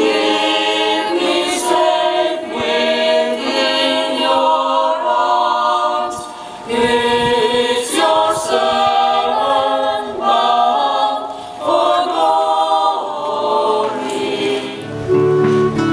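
Mixed youth choir singing, in phrases with brief breaks about six and thirteen seconds in.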